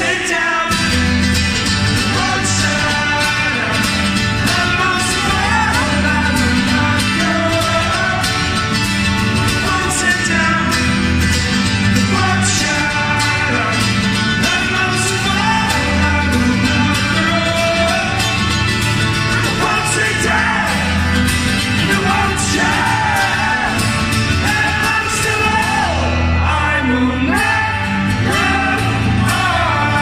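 A man singing while strumming an acoustic guitar, amplified through a PA in a large hall; the song runs on steadily.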